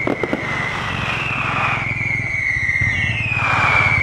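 Whistling fireworks: a long whistle that slowly falls in pitch, then a second one starting about three seconds in, with a few sharp crackling pops near the start. A steady low vehicle engine runs underneath.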